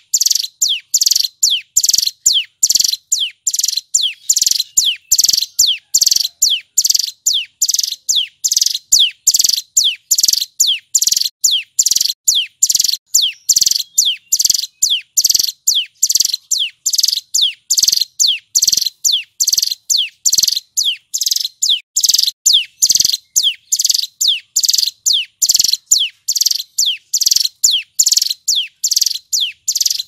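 Male ciblek gunung, a mountain prinia, singing loudly: a fast, unbroken string of short, sharp notes, about two a second, each sweeping steeply down in pitch.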